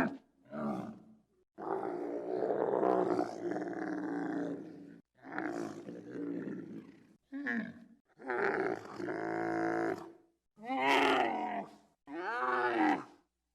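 Giraffe calling: a series of about seven separate pitched calls, some under a second and one about three seconds long, with short pauses between them.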